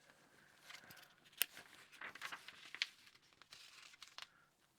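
Faint paper rustling and light taps as a model kit's instruction booklet is handled and its pages turned, with one sharp click about a second and a half in.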